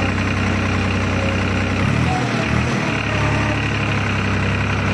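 New Holland 3600-2 tractor's diesel engine idling steadily, its low note wavering briefly about two seconds in.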